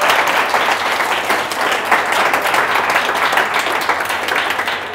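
Audience applauding at the end of a talk: dense, irregular clapping that begins to die down near the end.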